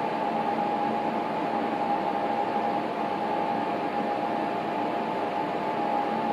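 A steady hiss with a constant high-pitched hum, the unchanging noise of a fan or electrical equipment running. No sound of the train itself.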